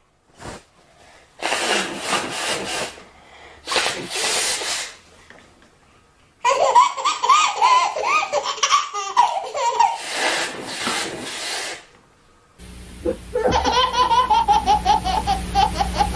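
Babies laughing. First come two short bursts of noise, then one baby's belly laughs in pitched peals. After a cut, a second baby laughs hard in a fast run of rhythmic peals over a steady low hum.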